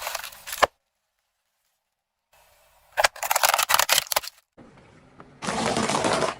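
Objects crushed under a car tyre: a short burst, a silent gap, then crackling and snapping with many sharp clicks, and a second loud crunching burst near the end.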